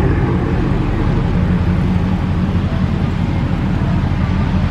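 Dodge Challenger's V8 engine idling steadily, with an even low note.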